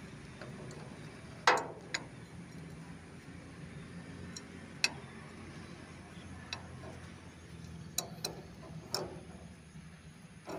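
Adjustable steel spanner clinking on a nut at a thresher's shaft bearing as it is fitted and turned: a few sharp metallic clicks at irregular intervals, the loudest about a second and a half in.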